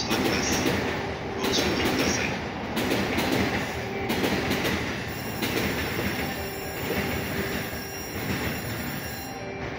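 Electric train running on rails at a station: a steady rumble of wheels on track with repeated clacks over the rail joints. It fades near the end.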